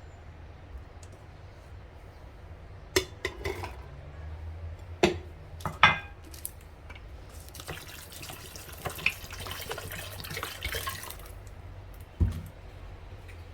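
Water running from a tap for a few seconds about halfway through, with several sharp clinks and knocks of kitchen utensils before it.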